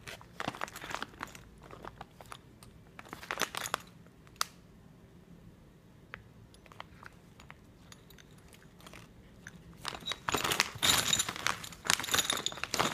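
Clear plastic bag of diesel pump repair kit parts crinkling as it is handled in the hand, in short bouts early on and a longer, louder stretch near the end as the bag is shaken and the washers and caps inside shift.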